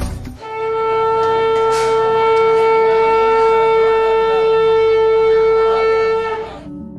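Conch shell (shankh) blown in one long steady note of about six seconds, rich in overtones, that cuts off sharply near the end.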